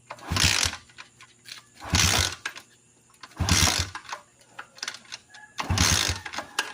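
Motorcycle engine being cranked in repeated short attempts, four brief bursts of turning over about a second and a half apart, each dying away without catching: a hard-starting motorcycle.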